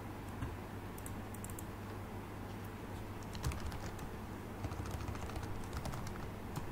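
Computer keyboard typing in several short bursts of quick key clicks, over a faint steady low hum.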